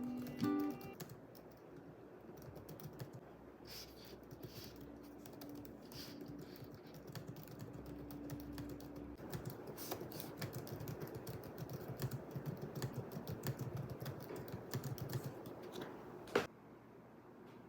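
Typing on a computer keyboard: a quick, irregular run of key clicks, with one louder click near the end before it goes quieter.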